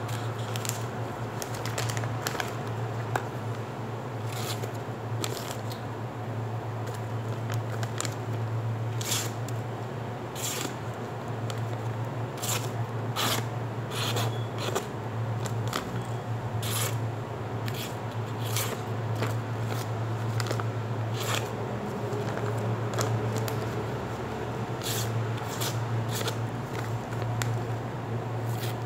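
Knife with a 420 stainless steel blade slicing through a sheet of printed paper: a long run of short, crisp cuts at irregular intervals, with the paper rustling, as the edge is tested for sharpness. A steady low hum runs underneath.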